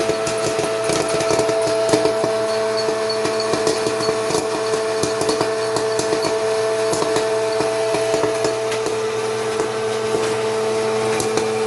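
Small electric popcorn machine running with a steady hum while corn kernels pop inside it in quick, irregular cracks, thickest through most of the stretch and thinning out near the end.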